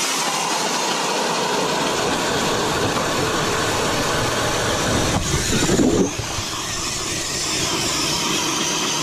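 Two electric ice augers boring through about 15 inches of lake ice at once: a StrikeMaster Lithium battery auger and a cordless drill turning an 8-inch Eskimo auger bit. It is a loud, steady grinding whir, with a brief change in the sound about five to six seconds in.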